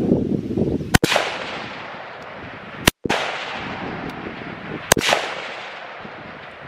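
Three rifle shots from the firing line, about two seconds apart, each followed by a fading echo. This is the start of a fired string just after the targets come up.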